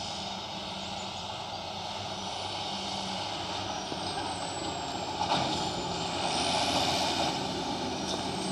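Tractor engine running as it approaches, growing gradually louder: a steady low drone under a wide rush of noise.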